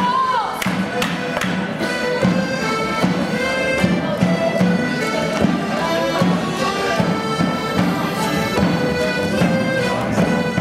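Folk band of accordions and guitar playing a lively traditional morris tune for a stick dance, the reedy accordions carrying the melody. The dancers' wooden sticks clack sharply a few times in the first second or so.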